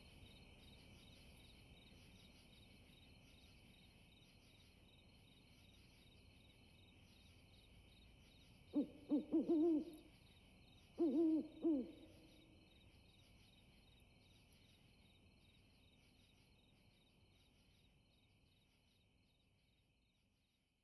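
Faint night ambience of crickets chirping steadily, fading out near the end. About halfway through, an owl hoots twice, each time a short run of several notes, about two seconds apart.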